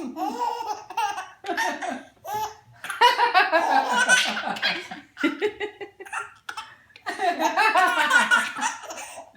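Baby laughing hard in repeated belly-laugh bouts, high-pitched, with short gaps for breath between them; the longest bout comes about three seconds in.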